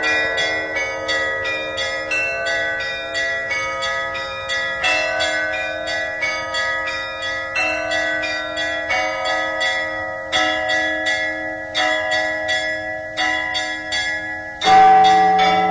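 Church bells ringing from a belfry: a quick, even run of strikes on several smaller bells, about three a second. A deeper, louder bell is struck about a second before the end.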